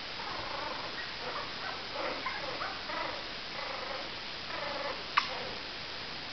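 Puppies play-fighting, making short growls and grunts in a string of brief bouts, with one sharp click about five seconds in.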